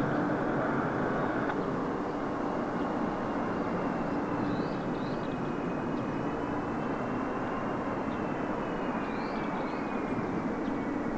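Airbus A330-200 airliner with Pratt & Whitney turbofans passing on its landing approach: a steady jet rumble with a thin engine whine that falls in pitch over the last few seconds as it goes by.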